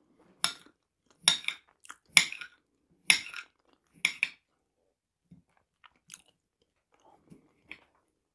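Crisp crunches of pickled cucumber being chewed and sliced with a knife, about seven sharp ones in the first four and a half seconds, then a few fainter ones after a short lull.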